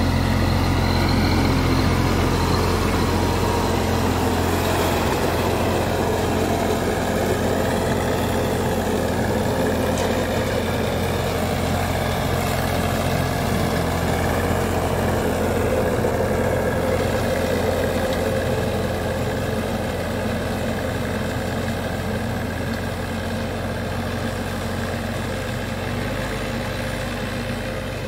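Kubota B2441 compact tractor's three-cylinder diesel engine running steadily while driving a PTO blower sprayer, a steady engine drone under the rushing air of the sprayer fan. It fades a little toward the end as the tractor moves away.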